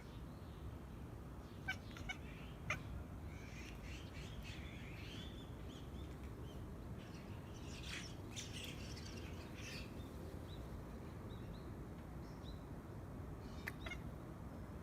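Birds chirping: scattered short, sharp calls, a warbling call about four seconds in and a cluster of calls in the middle, over a faint steady background.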